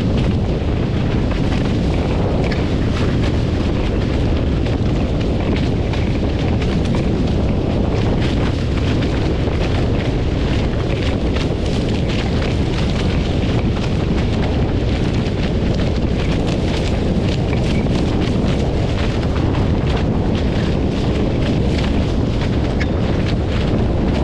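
Loud, steady wind buffeting on the microphone: a deep rumble with a crackling hiss on top.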